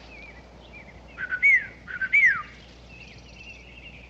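Birdsong: short chirps repeating throughout, with two much louder whistled calls a little past a second in and around two seconds in, each a short note followed by a whistle that rises and then falls.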